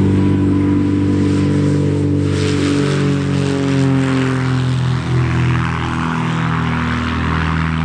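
Diamond DA40 Diamond Star single-engine propeller plane at takeoff power, lifting off and climbing past. Its engine and propeller drone grows about two seconds in and drops in pitch as it goes by.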